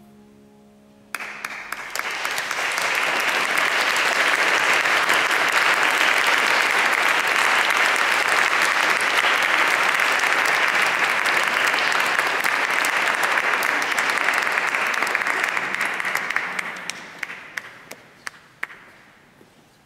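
A piano's final chord dies away. About a second in, audience applause starts suddenly, holds steady, then thins to scattered single claps that stop near the end.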